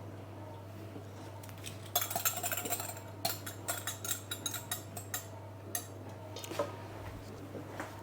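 Kitchen utensils and dishes clinking and clattering: a quick run of clinks for about a second, then scattered single clicks and taps for a few seconds more.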